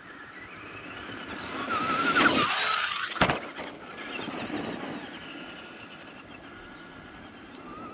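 Electric RC truck driving fast on gravel: its motor whine rises and glides in pitch to its loudest about two to three seconds in, a single sharp knock comes just after three seconds, and the whine then fades as it drives away.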